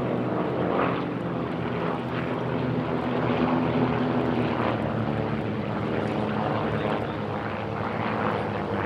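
Formation of Saab 91 Safir propeller trainers passing overhead, their Lycoming flat (boxer) piston engines droning together in a steady, mighty sound that swells and eases slightly.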